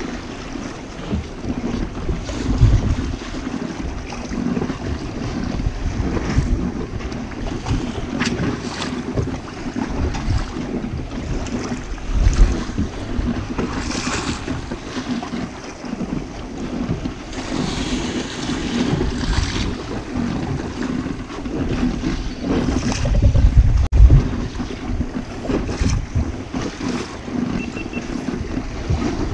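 Wind buffeting the microphone on a small boat at sea, over a steady low hum, with waves and water splashing against the hull now and then.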